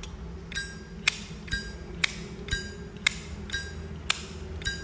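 Zippo lighter lid repeatedly flicked open and snapped shut, about two strokes a second: bright ringing metallic clinks alternating with sharper clicks, the lighter's clear open-lid 'ping' being shown off.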